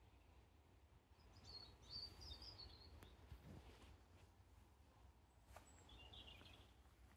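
Faint birdsong: two short spells of high chirping, one about a second in and another near the end, over a low steady outdoor rumble.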